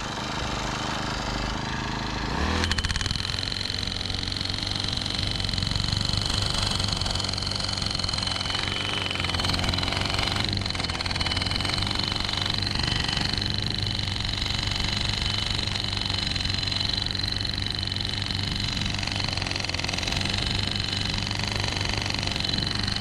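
Gas-powered post driver engine picking up about two and a half seconds in, then running steadily as it hammers a 2-inch schedule 40 galvanized steel pipe piling down.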